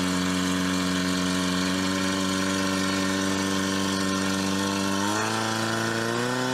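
Engine of a portable fire pump running at high, steady revs while it drives water through the hoses to the nozzles. Its pitch steps up about five seconds in.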